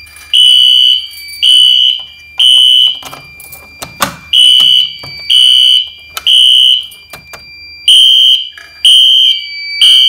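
Fire alarm horns sounding the temporal-three evacuation pattern after a manual pull station has been pulled: three short high beeps, a pause, then the next three, repeated three times. A thin, steady piezo tone from the fire alarm panel and annunciator sounds underneath, and there is a sharp click about four seconds in.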